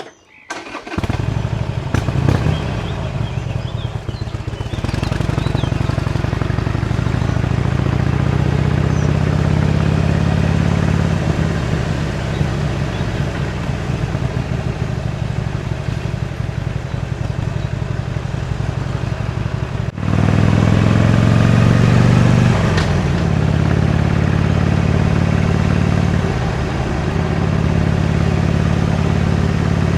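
Harley-Davidson Iron 883's air-cooled 883 cc V-twin through its stock exhaust, heard riding. It comes in suddenly about a second in and runs steadily under way. Near two-thirds of the way through there is an abrupt break, then it gets louder as it revs and the pitch glides, with a brief drop in level a little later.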